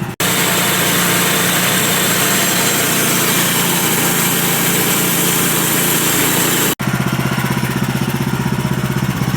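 Gas-engined portable sawmill sawing through a large pine log: the engine runs steadily under load, with the hiss of the blade cutting the wood over it. About seven seconds in, the cutting hiss gives way to the engine alone, running with an even pulsing beat.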